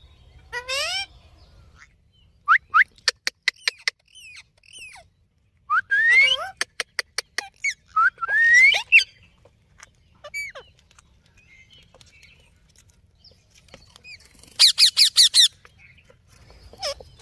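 Indian ringneck parrot squawking and chattering: series of short sharp calls, a few rising and falling whistled notes, and a loud rapid run of high screeches near the end.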